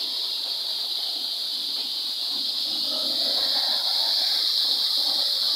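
Small waterfall pouring onto rock and shallow water: a steady hiss of falling and running water, a little louder from about halfway through.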